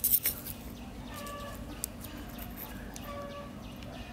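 Scissors snipping the electric fan motor's coil lead wires: a few sharp clicks near the start. Behind them a bird gives a short call about every two seconds.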